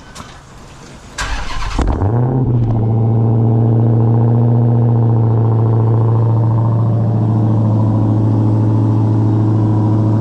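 Dodge SRT Hellcat's supercharged 6.2-litre Hemi V8 cold start: the starter cranks briefly about a second in, the engine catches with a short rev flare, then settles into a loud, steady idle.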